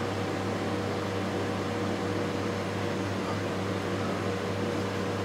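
Steady mechanical hum with a faint constant whine above it.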